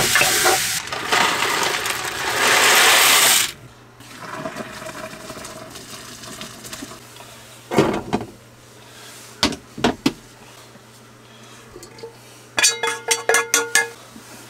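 Cooking in a small kitchen: crumbled sausage stirred in a skillet, then about three seconds of loud rushing water that cuts off sharply, the pasta being drained. After that come a few utensil knocks on the pans, and near the end a quick run of ringing taps as the meat is scraped from the skillet into the pasta pot.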